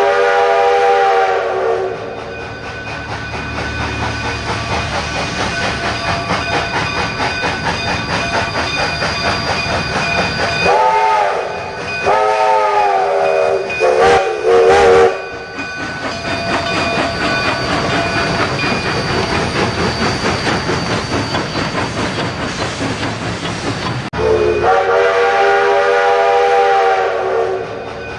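Train whistle blowing over the steady rumble and clickety-clack of a running train. One long blast comes at the start, three shorter ones follow in quick succession near the middle, and another long blast comes near the end.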